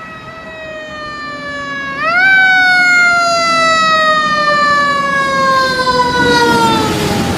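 Fire engine siren wailing as the engine approaches and passes: the pitch jumps up about two seconds in, then falls slowly, with engine and tyre noise swelling as it goes by near the end.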